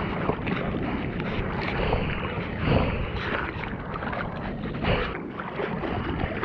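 Surfer paddling on a surfboard: hands and arms stroking through seawater, giving several irregular splashes over a steady wash of water, with wind on the microphone.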